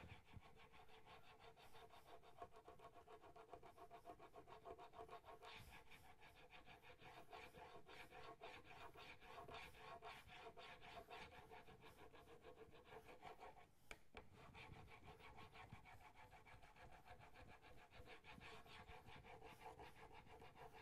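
Faint, quick back-and-forth rubbing of a steel chisel bevel on a wet 1-micron polishing waterstone, the blade held in a Sharp Skate jig, with a brief pause about fourteen seconds in. This is the final polishing stage that takes the bevel to a mirror finish.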